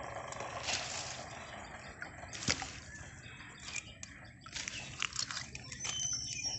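Small fish wriggling and flapping on a wet, muddy net: irregular soft wet slaps, squelches and drips, with one sharper click about two and a half seconds in.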